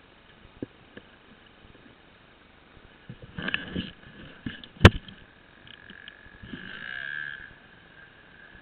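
Knocks and rustling from handling a body-worn camera, with a cluster of knocks a little past three seconds, one sharp knock about five seconds in, and a brief hiss around seven seconds.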